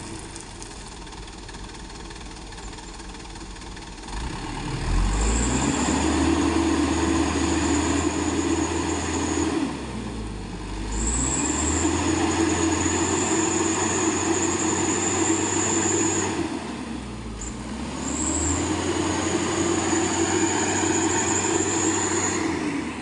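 Truck engine revved up hard three times, each time held high for about five seconds with a high whine over it, then dropping back briefly between pulls.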